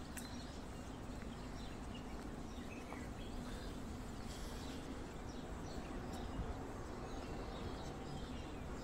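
Steady outdoor background hum with faint, scattered bird chirps.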